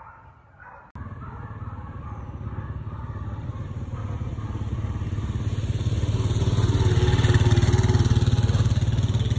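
A motor vehicle's engine running as it drives along a dirt road, starting abruptly about a second in and growing louder over several seconds.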